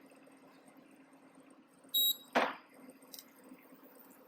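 A single short, high electronic beep about two seconds in, followed almost at once by a brief burst of noise that dies away quickly, over a faint steady low hum.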